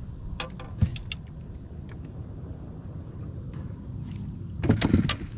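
Clicks and knocks of fishing gear being handled in a boat, over a steady low rumble. A louder cluster of knocks comes near the end.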